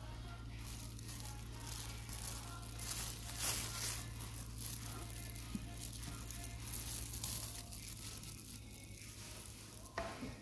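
Plastic spatula scraping and spreading thick cheese sauce over bread in a glass baking dish, in irregular wet strokes over a steady low hum.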